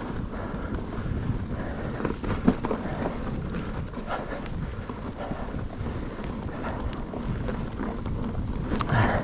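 Mountain bike being ridden along a dry dirt trail: steady tyre and wind noise on the microphone, with scattered small knocks and rattles from the bike over the ground.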